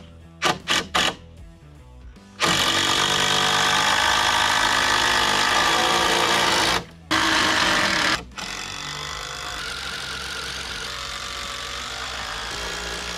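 Cordless drill driving long wood screws into timber: the motor runs at full speed for about four seconds, stops for a moment, starts again, then runs on at a lower level.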